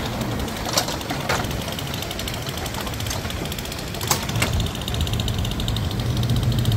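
Engine running steadily with a low hum, with four sharp clicks, a pair about a second in and another pair about four seconds in.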